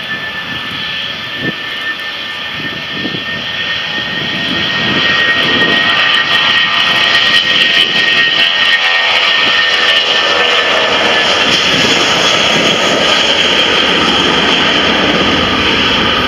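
Airbus A320's twin jet engines at takeoff thrust during the takeoff roll: loud jet noise with a high whine that drifts slightly down in pitch, growing louder about five seconds in and then holding steady.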